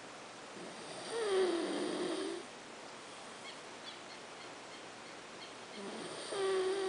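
A man snoring in his sleep: two long, loud snores on a low droning tone, one about a second in and another near the end, sounding like a pig.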